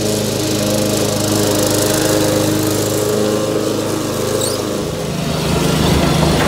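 Walk-behind lawn mower's small engine running steadily under load while mowing grass. About five seconds in it gives way to a zero-turn riding mower's engine with a lower, pulsing note.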